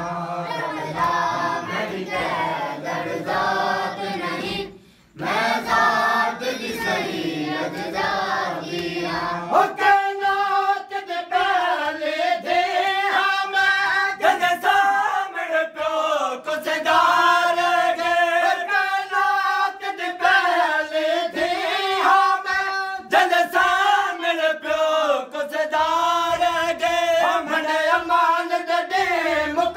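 Group of mourners chanting a Punjabi noha lament together in repeated melodic phrases. About five seconds in the voices drop away for a moment, and from about ten seconds in they come through clearer and a little louder.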